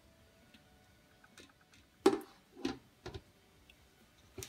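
Light clicks and knocks of a plastic bottling bucket and clear vinyl siphon tubing being handled: several separate taps, the loudest about two seconds in and another near the end.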